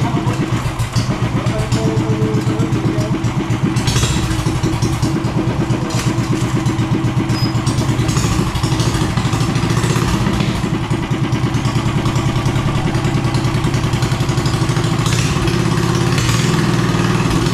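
A small engine running steadily at an even speed, with low, rapid chugging pulses, a little louder in the last couple of seconds.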